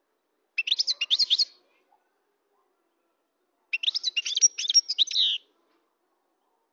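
European goldfinch singing: two bursts of rapid twittering song, the second starting about three seconds after the first and running longer.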